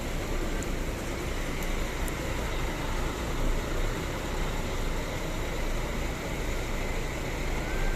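Large diesel coach bus engine running steadily, a continuous low rumble.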